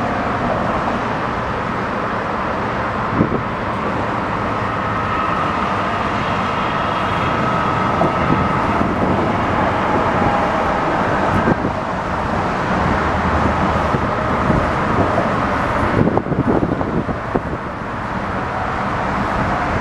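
Tugboat's diesel engine running steadily, a low hum under a broad rushing noise, with wind buffeting the microphone.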